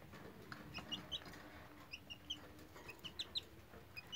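Faint, short, high peeps from a young Serama chicken, about ten scattered through, with a few soft clicks.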